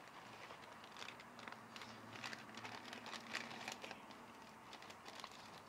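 Faint, irregular crinkling and rustling of a striped paper gift bag and its wrapping being opened by hand.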